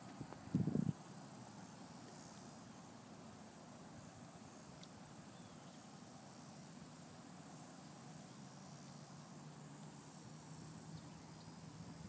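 Steady high buzzing of insects in the riverside vegetation. About half a second in comes a brief, louder low rumble.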